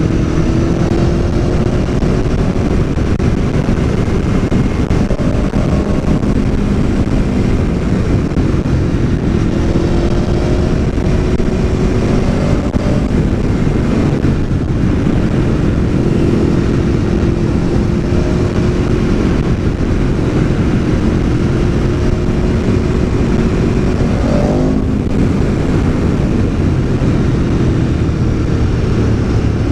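Aprilia Tuono V4 1100's V4 engine pulling under way, its note climbing steadily and dropping sharply twice, about halfway and near the end, as at gear changes, under heavy wind rush on the mic.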